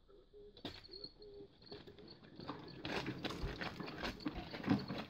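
1961 Zetor 25 two-cylinder diesel being turned over with the hand starting crank: irregular clattering knocks that get louder and quicker about three seconds in.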